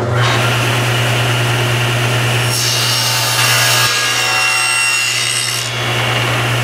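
Table saw running with its motor humming steadily while the blade cuts a dado groove along a wooden drawer side for the drawer bottom. The cutting noise turns harsher and brighter for about three seconds in the middle as the blade bites through the wood.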